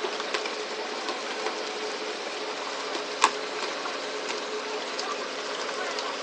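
A boat engine runs steadily, a low even hum under a wash of water noise. Faint clicks come and go, with one sharp knock about three seconds in.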